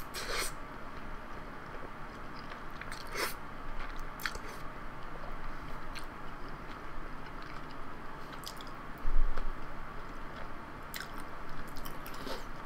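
Close-miked eating of jajangmyeon noodles: a slurp of noodles at the start, then chewing with small wet clicks and smacks. A low bump about nine seconds in.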